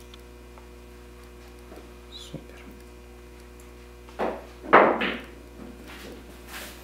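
A steady low hum with a few short knocks, the loudest a little before five seconds in.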